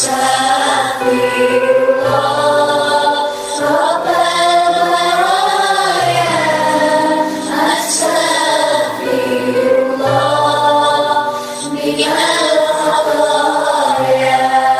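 Music with choir-like singing: several voices hold long notes and glide between them over a low sustained tone.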